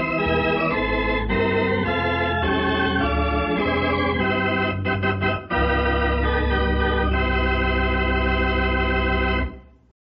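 Organ playing the closing theme: a run of changing chords, a short break about five seconds in, then one long held chord that dies away quickly near the end.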